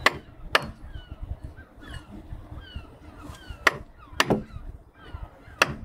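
Caulking mallet striking a caulking iron, driving oakum into the seams of a wooden deck: five sharp knocks at uneven intervals, two near the start, two a little past the middle and one near the end.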